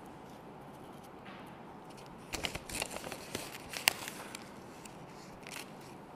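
Small paper strips handled and dropped onto a sheet of paper: a cluster of crinkling, rustling clicks lasting about two seconds, the sharpest one near the middle, and one brief rustle near the end.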